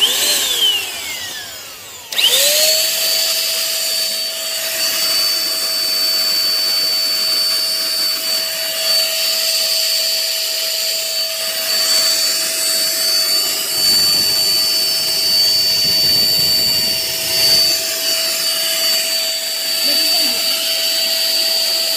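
Corded electric hand blower winding down at the start, then switched on again about two seconds in and running steadily, a high motor whine over a rush of blown air.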